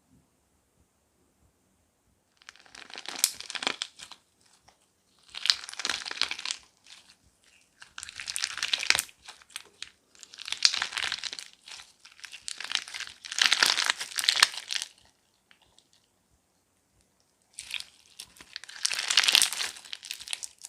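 Crunchy slime being squeezed and pressed by hand, crackling and crunching in six bursts with short quiet pauses between.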